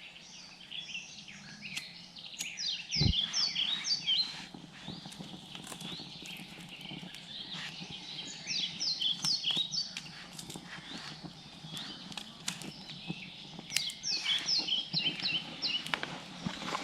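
A songbird singing short phrases of quick down-slurred chirps, repeated about every five or six seconds, with scattered clicks and knocks nearby and one heavier knock about three seconds in.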